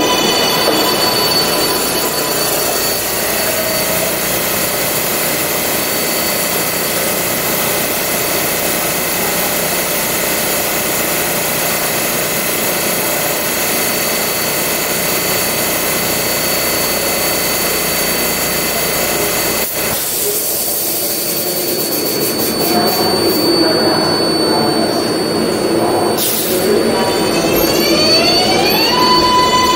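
Subway car of a 7 train standing directly overhead, its under-car equipment giving a steady hum and whine with several steady tones. The sound changes abruptly partway through, a sharp click comes later, and near the end a rising whine starts as the traction motors begin moving the train off.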